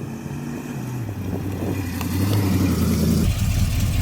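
Car engine running, its steady note dropping a step about a second in, then growing louder.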